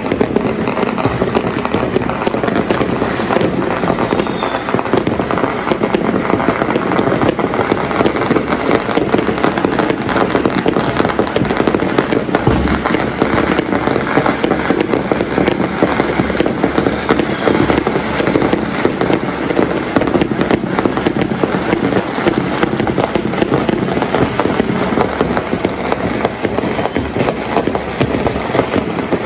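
Firecrackers and fireworks going off nonstop, countless small bangs running together into a loud, steady crackle.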